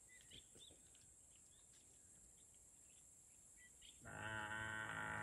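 Faint bush background with a few short bird chirps. About four seconds in, a loud, long, steady bawl begins: a Cape buffalo calling.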